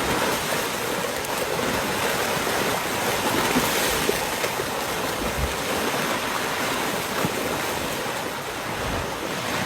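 Steady, loud rushing noise of rough water and wind, even and unbroken.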